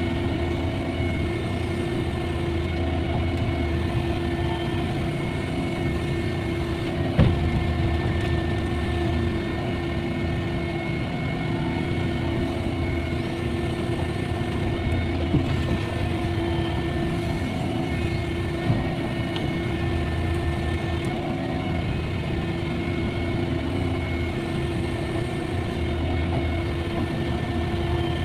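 Caterpillar 305.5E mini excavator's diesel engine running steadily while it digs and loads soil, with a sharp knock about seven seconds in and two lighter knocks later.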